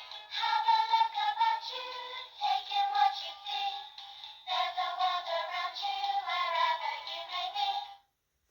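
A tinny song with a singing voice from a children's sound book's little speaker, in two phrases, cutting off suddenly near the end.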